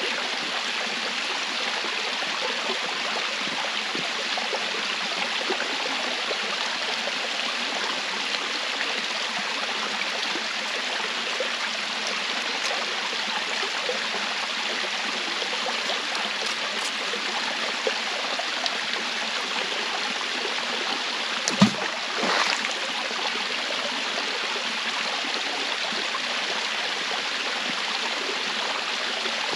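Steady rushing of a stream or waterfall, an even hiss of flowing water, broken about two-thirds of the way through by a single sharp knock and a brief louder rush.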